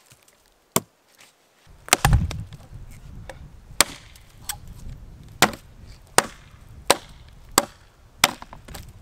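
Gränsfors Bruk Wildlife hatchet chopping a branch off a log: about eight sharp blows of the steel head biting into wood. The loudest blow lands about two seconds in, and the blows come quicker toward the end.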